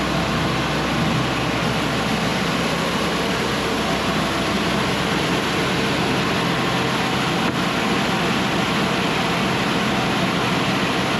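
Cook's AC-36 band sawmill running steadily under its diesel engine, a continuous loud mechanical drone with a low engine hum, as the saw head is run back along the track after a cut.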